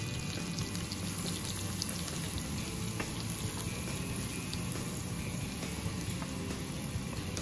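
Minced garlic and chopped onion sizzling steadily in melted butter in a frying pan, with small crackles, while a wooden spatula stirs them.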